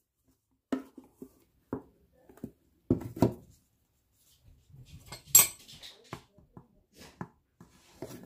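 A plastic measuring cup scooping flour and knocking against a clear plastic storage container, giving irregular dull knocks and taps with soft rustling of flour, the loudest knock about three seconds in and a sharper click a little past the middle. A table knife scrapes and taps the cup as it levels the flour near the end.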